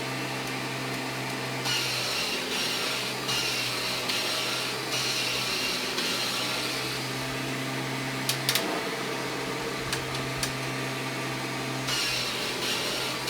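1997 Kirby G5 upright vacuum cleaner running steadily while vacuuming, its airy hiss swelling and dropping back every second or two as it is pushed back and forth. A few sharp clicks come about two-thirds of the way through.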